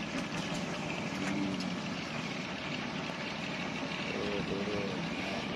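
Engine of a wooden river passenger boat idling steadily as it lies alongside the jetty.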